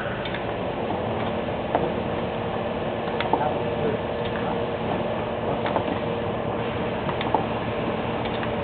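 Luciano Packaging Technologies vial filling machine running: a steady mechanical hum with sharp clicks and clacks, roughly one a second, from its moving parts.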